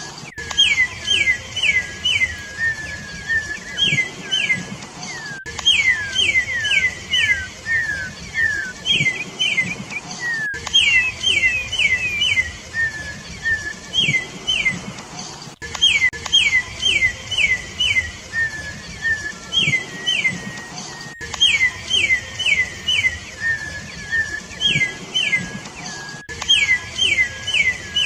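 Campo troupial (corrupião) singing: quick runs of three to five loud whistled notes, each sliding down in pitch, repeated over and over, with a thin steady whistle held between the runs.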